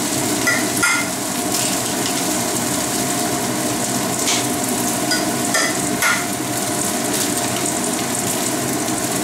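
Char siu and chives sizzling steadily in oil in a frying pan. A few short clicks and taps come through as two eggs are cracked into a stainless-steel bowl.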